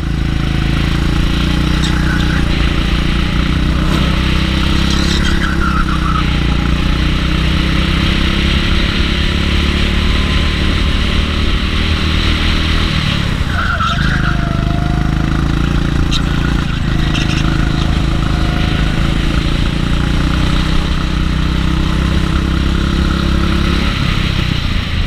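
Go-kart engine running hard, heard close up from on board the kart. The revs drop about halfway through as it slows into a corner and then build again, with another dip near the end.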